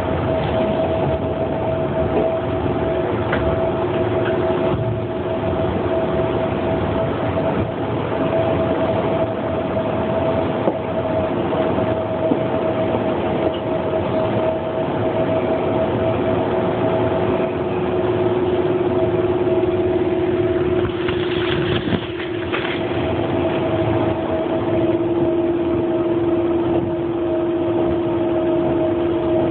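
Running noise heard inside a moving train carriage: a steady rumble with a continuous two-tone hum over it and a few faint knocks.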